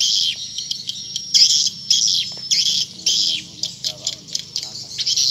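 Swiftlets chirping: rapid, high, buzzy chirps repeated in short bursts several times a second.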